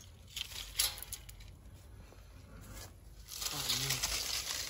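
Crackling and rustling: a few sharp crackles in the first second, then a louder, steady rustle from a little past three seconds.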